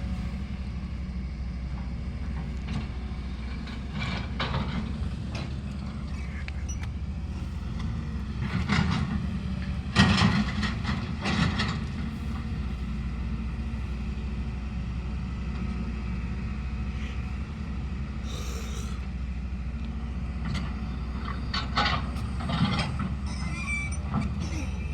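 A vehicle's engine running with a steady low drone, with scattered knocks and rattles over it, the loudest about ten seconds in.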